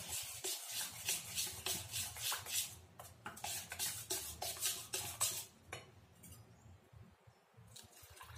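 Steel spoon stirring thick batter in a stainless steel bowl, scraping and clinking against the sides about three or four times a second. The stirring stops about six seconds in.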